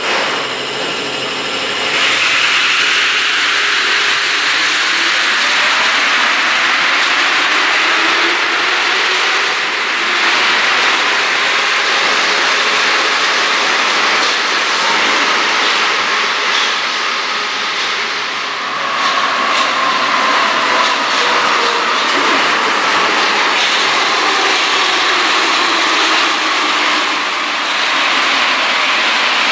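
Rubber-tyred Paris Métro MP 73 trains: one pulls out, then the next runs in along the platform. A steady rush of tyres and traction gear, with a faint falling whine about two-thirds of the way through.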